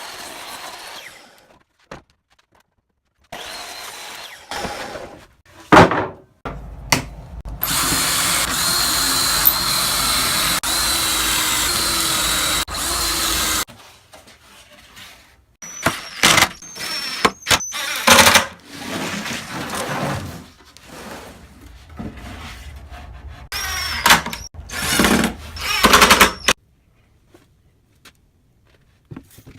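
Handheld power tool running in a string of short bursts and one long steady run of about six seconds near the middle, its motor whine climbing as it spins up several times.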